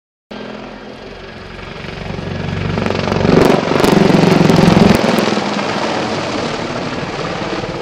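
Mil Mi-28 attack helicopter flying past: rotor and turbine noise builds to a loud peak about three to five seconds in, then eases off.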